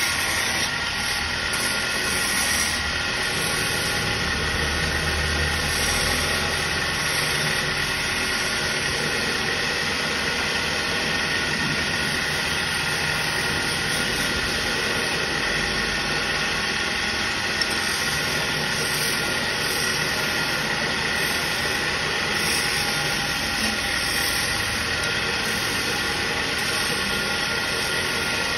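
Wood lathe running steadily while a hand-held chisel is held against the spinning wooden workpiece, shaving off chips in a continuous even noise with a faint motor hum underneath.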